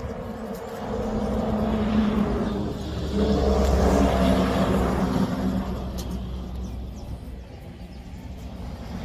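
Heavy vehicles passing on a road, their engine and tyre noise swelling up and fading away as they go by, with the loudest pass about four seconds in.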